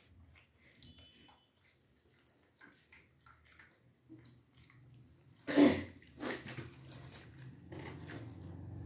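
Faint small clicks and crunches of puris (golgappa) being cracked open and eaten by hand. A short, much louder noise comes about five and a half seconds in, and another about a second later.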